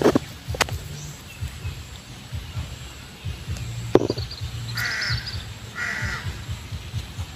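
A crow cawing twice, about five seconds in and again a second later, over a low rumble. A few sharp knocks come near the start and about four seconds in.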